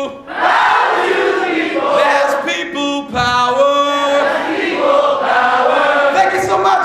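A man singing out loud at full voice, with other voices joining in like a choir.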